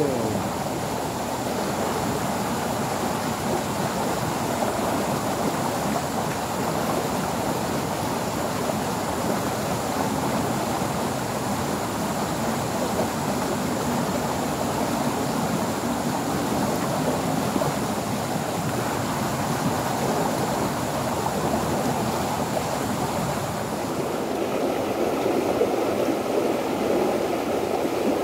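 Steady rushing of a small stream's water flowing past the bank, with no separate splashes or knocks; near the end the sound shifts a little.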